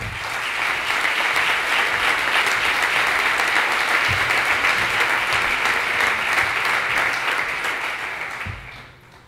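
Audience applauding: many people clapping together, starting at once and dying away near the end.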